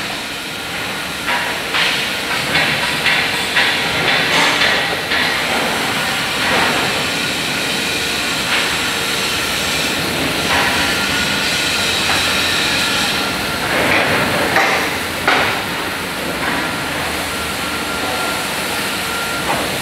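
Factory hall noise: a steady hiss with irregular knocks and clanks throughout.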